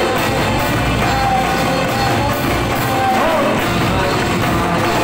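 Live band music played loud through a sound system: keyboards and a drum kit with a steady cymbal beat, under a woman's singing voice on a microphone.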